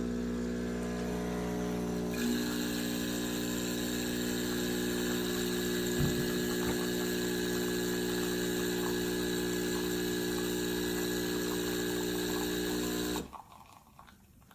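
CHULUX Slim espresso machine running: a steady pump hum, joined about two seconds in by a high hiss, with a single knock midway. Both cut off suddenly near the end.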